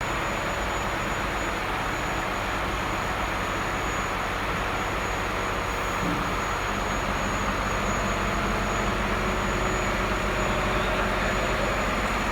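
A vehicle engine running steadily, getting slightly louder about six seconds in.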